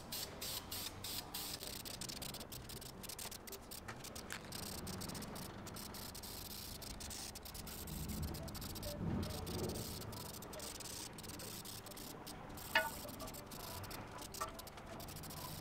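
Aerosol spray-paint can hissing in short repeated bursts, stopping and starting, as the intake manifold is painted. A single sharp click about three-quarters of the way through.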